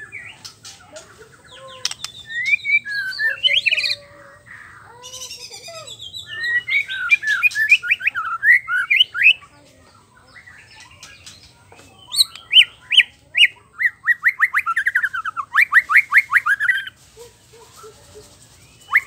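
White-rumped shama singing loud, varied song in three long bursts with short pauses between them, each burst built from fast runs of repeated sweeping notes.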